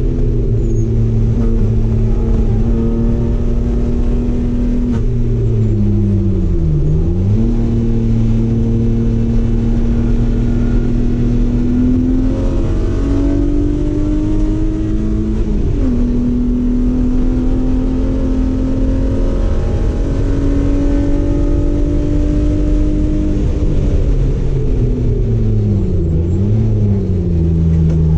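Race car engine running hard at steady revs, its pitch dropping sharply and climbing back three times as the car slows and shifts.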